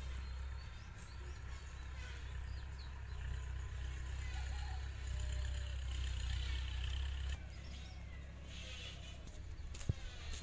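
Outdoor ambience: a steady low rumble with birds chirping, the rumble dropping away about seven seconds in. Near the end, the sharp slaps of flip-flop footsteps on a dirt path begin.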